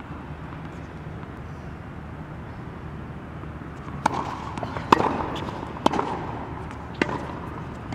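Tennis rally on an outdoor hard court: a serve about four seconds in, then sharp pops of the ball off racket strings and the court about once a second. Steady low background noise throughout.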